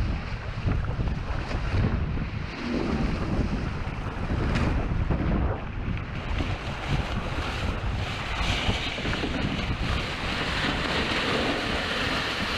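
Strong wind buffeting the microphone over water rushing along the hull of a sailboat under way in high wind; a brighter hiss builds about two-thirds of the way through.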